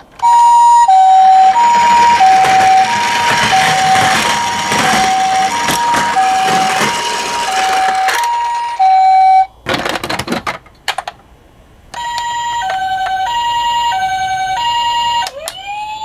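Toy ambulance minicar's electronic two-tone hi-lo siren, alternating high and low about every 0.7 s, over the rolling noise of the toy going down a ramp. The siren stops after about nine and a half seconds with a few handling knocks. A second two-tone siren starts about twelve seconds in and turns into a rising wail near the end.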